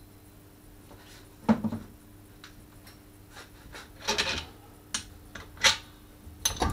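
Metal exhaust header pieces being handled and test-fitted against a scooter engine: a few separate knocks and scrapes of metal on metal, the loudest about a second and a half in and again near the end, over a faint steady hum.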